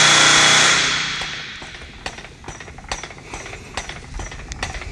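Hangar maintenance noise: a loud hiss with a steady high whine that dies away over the first second and a half, then scattered sharp metallic knocks and taps that echo in the big hall.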